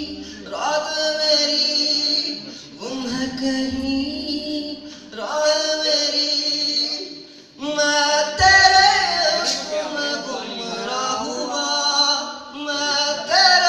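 A man singing with musical accompaniment, in phrases of about two seconds separated by short breaks, over a steady low held note.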